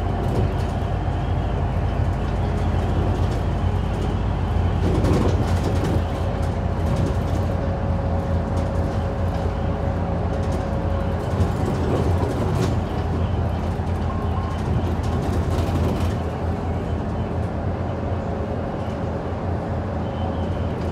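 Inside a Hyundai Super Aero City city bus under way: a steady low engine drone and road noise, with a few brief knocks from the cabin.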